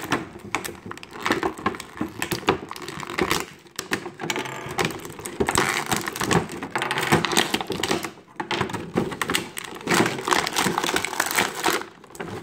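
Clear plastic blister tray crinkling and clicking as toy pieces are worked out of it by hand: a rapid, irregular run of sharp crackles with a few short pauses.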